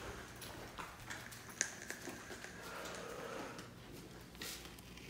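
Faint footsteps on a hard floor and light handling noises, with a brief rustle of a paper card picked up off a printer near the end.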